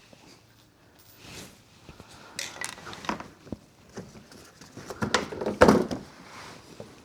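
An underbody panel on a Chevy Cruze being unfastened and pulled down by hand: a run of clicks, knocks and rattles, loudest about five to six seconds in.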